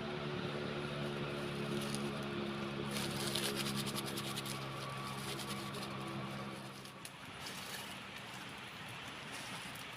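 A steady motor or engine hum at an even pitch that fades out about seven seconds in, over a crackly scratching noise.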